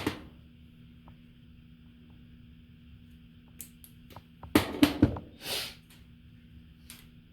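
Clicks and knocks of small parts being handled during a hobby repair: a click at the start, a quick cluster of knocks about four and a half seconds in, then a short hiss, over a faint steady hum.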